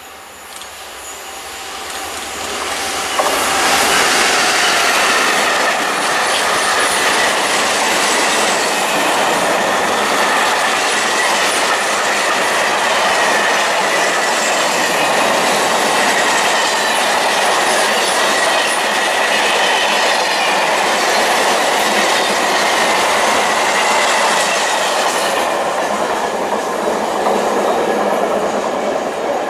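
Freight train of red covered wagons passing close by. The sound builds over the first few seconds as the train arrives, then holds as a long steady rush of wheels on rails with a thin high whine running through it, and eases off near the end as the last wagons go by.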